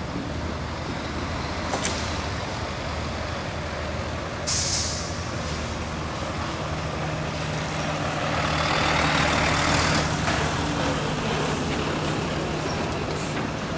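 Volvo FH articulated lorry's diesel engine running as it creeps past towing a fairground ride, with a short sharp hiss of its air brakes about four and a half seconds in. The engine noise swells as the cab goes by close, around eight to ten seconds in.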